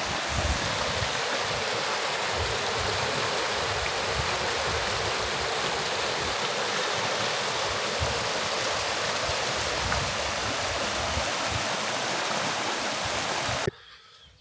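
Running water, a steady rushing like a stream, that cuts off suddenly near the end.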